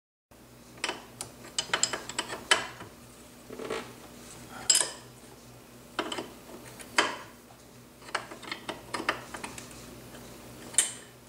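Open-end wrench clicking and tapping against the brake master cylinder's mounting nuts as they are tightened one flat at a time. The metal clicks come irregularly, in small clusters with a few louder clacks.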